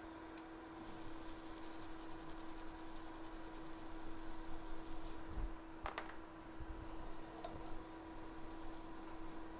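Faint steady hum from electronics repair bench equipment, with a high hiss from about a second in to about five seconds and a short chirp about six seconds in.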